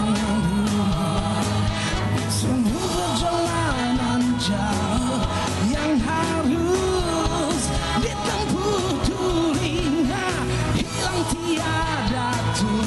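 Malay pop-rock song: a male lead singer's melody over a full band backing with steady bass.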